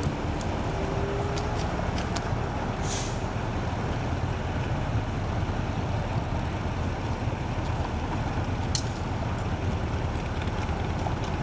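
Steady low rumble of idling heavy vehicles and road traffic, with a short hiss of air about three seconds in.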